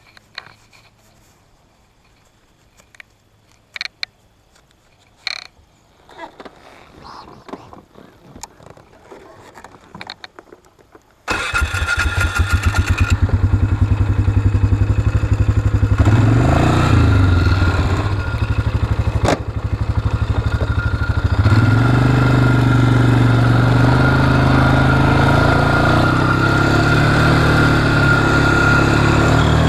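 A few faint clicks and handling noises, then about eleven seconds in the Polaris Scrambler 500 ATV's single-cylinder four-stroke engine starts suddenly and keeps running. It revs briefly a few seconds later, and from about two-thirds of the way through it runs steadily at higher revs.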